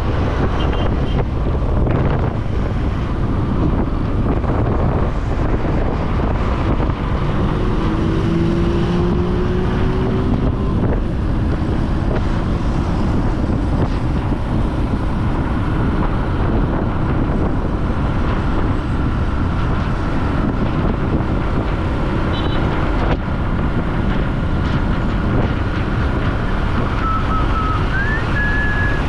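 Steady wind rushing over the microphone of a moving motorcycle, with the bike and surrounding traffic running beneath it.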